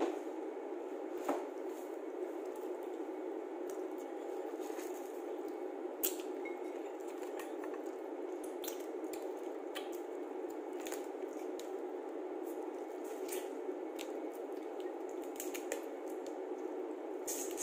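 Close-miked wet eating sounds as crab is eaten by hand: squishing, sucking and smacking at the meat in the shell, with scattered sharp clicks of shell, over a steady background noise.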